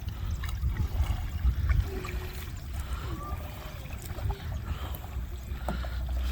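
Kayak paddling on calm water: paddle strokes and water lapping against the hull, under a low wind rumble on the microphone.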